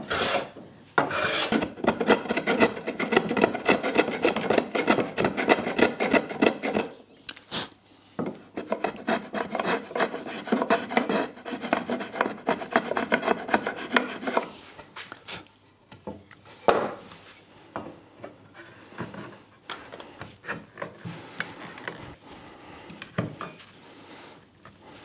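Hand plane shaving a hardwood tiller in quick short strokes, several a second, for about fourteen seconds. It then slows to fewer, lighter strokes with one sharp knock partway through.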